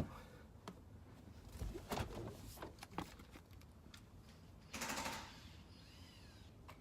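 Faint, scattered clicks and knocks, with a brief louder rustle about five seconds in.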